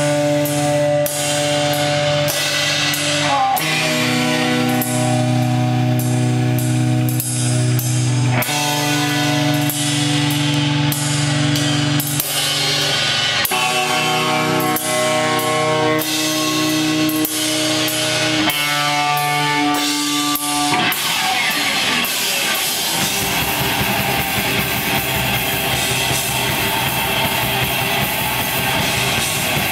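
Black metal band playing live: distorted guitars hold long chords that change every few seconds, marked by drum and cymbal hits. About 21 seconds in, the playing thickens into a dense, unbroken wash of guitar and cymbals.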